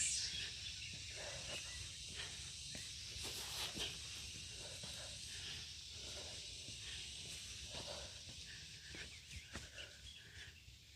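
Faint outdoor trail ambience: an even high-pitched hiss in the background, with scattered light footsteps and rustles that thin out toward the end.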